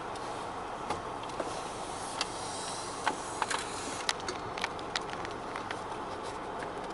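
Steady vehicle cabin noise, an even rumble and hiss, with a scattering of small clicks and taps.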